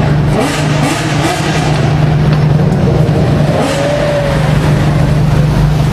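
Ferrari Enzo's V12 engine with a Tubi exhaust idling, a loud steady low note that holds level throughout.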